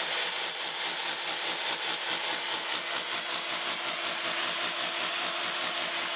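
Electric motor pick (demolition hammer) with a point chisel running continuously, hammering rapidly and evenly as it chips lime mortar out from between the stones of a wall.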